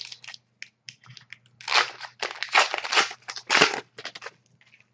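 A 2010-11 Panini Zenith hockey card pack being torn open, its wrapper crinkling and rustling in a string of irregular bursts.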